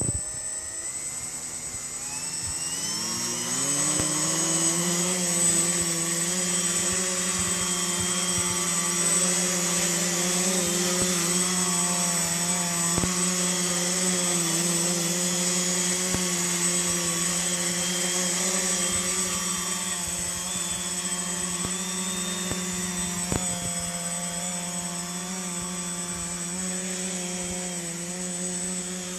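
HobbyKing C3 tricopter's three electric motors and propellers spooling up, rising in pitch over the first few seconds. They then hold a steady buzzing hum with a thin high whine as it hovers and flies.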